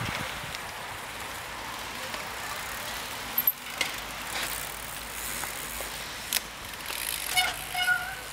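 Mountain bikes riding past on a muddy, leaf-covered dirt trail: a steady rush of tyres on the ground with sharp clicks and knocks from the bikes about three and a half seconds in. Near the end come a few short high-pitched tones.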